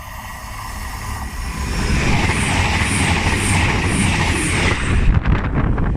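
A CrossCountry express passenger train approaching and passing at speed, a rumble that grows steadily louder. About two seconds in comes a run of five high ticks, about two a second. Near the end there are sharp rushes as the train goes by.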